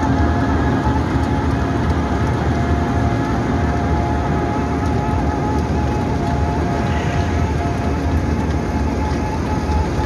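Wirtgen W 100 H cold milling machine running under load while milling asphalt, a steady loud drone of diesel engine and cutting drum with a constant whine over it, as milled asphalt pours off the conveyor into a dump truck.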